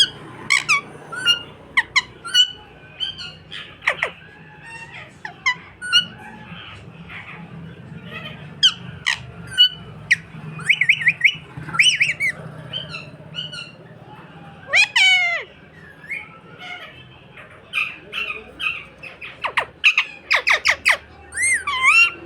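A pet parrot chirping, whistling and squawking in short, sharp calls with quick pitch sweeps, coming irregularly. A faint steady low hum runs underneath.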